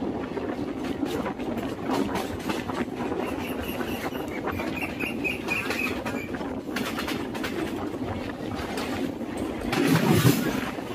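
Passenger train running along the track, heard from a coach doorway: a steady rumble with wheels clicking over rail joints, swelling louder about ten seconds in.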